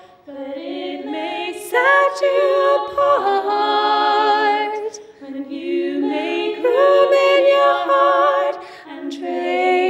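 Three women singing a cappella together, in sung phrases with short breaks for breath between them.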